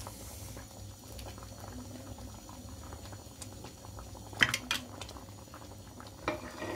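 A pot of chicken and mung bean soup bubbling steadily at a simmer, a continuous fizz of small pops. A couple of sharp metallic clinks, like a utensil against the stainless steel pot, come about four and a half seconds in, with another knock near the end.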